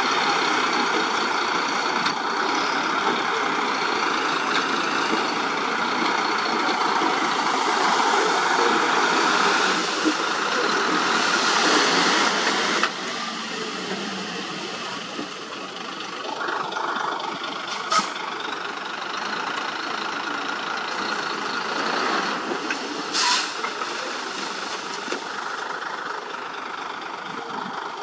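Dump truck's diesel engine running while its raised bed tips a load of soil. The sound drops to a lower level about halfway through. Later come a sharp click and a short burst of air hiss.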